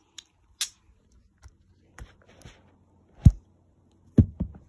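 Handling noise from a handheld phone camera being moved about: scattered clicks and fabric rubbing, with a sharp thump about three seconds in and two smaller knocks just after four seconds.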